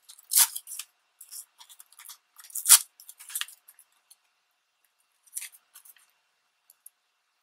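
Torn magazine paper strips being handled and pressed onto a glued collage, giving scattered crinkles and rustles; the sharpest crackle comes a little under three seconds in.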